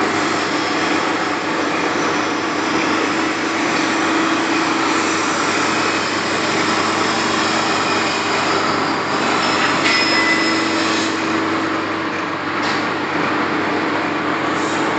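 Lathe running steadily: a constant mechanical hum and whir.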